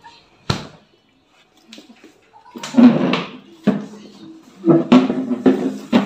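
A single sharp knock from the refrigerator door being handled, about half a second in, then indistinct talking that takes over from about two and a half seconds on.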